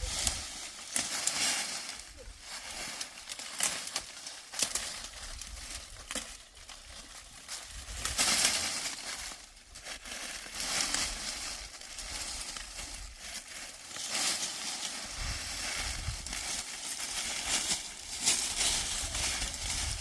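Irregular rustling and crunching, with dense small crackles and clicks throughout and a low rumble for a couple of seconds about three quarters of the way through.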